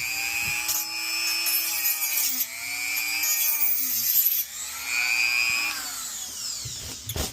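Handheld rotary tool whining as it cuts into a plastic control-board housing, its pitch sagging under load a couple of times and rising again. It stops near the end.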